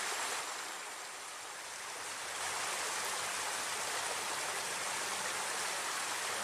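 Steady rushing of water flowing down a small ditch, an even wash of noise that eases slightly about a second in and then holds steady.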